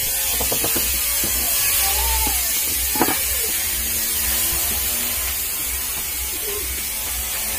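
Small clicks and knocks of desk-fan parts being handled during assembly, one sharper click about three seconds in, over a steady hiss and low hum.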